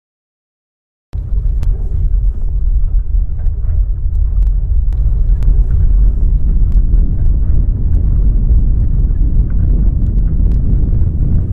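Earthquake sound effect: a loud, deep rumble that starts suddenly about a second in and keeps going, with scattered sharp cracks and rattles over it.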